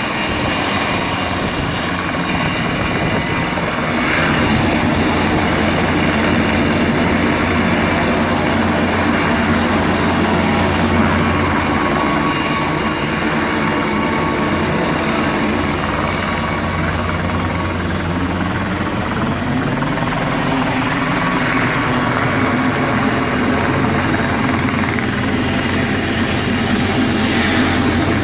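Mosquito XET single-seat turbine helicopter in flight: a steady high turbine whine over the rotor's beat. Its tones sweep up and down in pitch in the last third.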